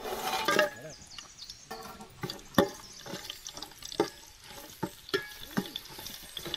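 Whole spices frying in hot ghee and oil with a faint sizzle, while a ladle stirs them and knocks against the pot a dozen or so times at irregular intervals.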